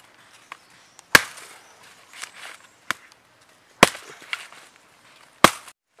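Machete chopping into a sprouted coconut's husk to split it open: three hard blows about one and a half to two and a half seconds apart, with a few lighter taps between.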